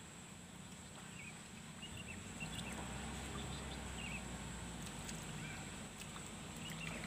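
Outdoor ambience at the water's edge: a steady low rumble that swells a little a few seconds in, a thin steady high tone, and several faint short chirps with a few soft clicks.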